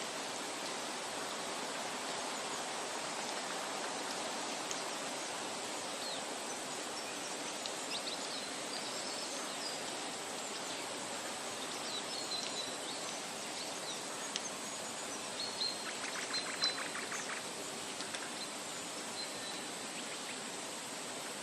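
Steady rushing water, like a stream or waterfall, with scattered bird chirps in the second half and a short rapid trill about sixteen seconds in.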